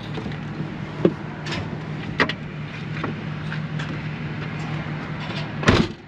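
A vehicle engine idling, heard from inside the cab, with a few light clicks and knocks. A louder clunk comes near the end, and the hum stops right after it.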